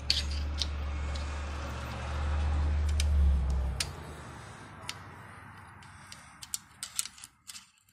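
Scattered sharp metallic clicks and taps of tools on a small-block Chevy valve train, as the valve spring is compressed with a homemade pushrod lever and worked at with a magnetic pickup tool. A low rumble runs under the first half and stops about four seconds in.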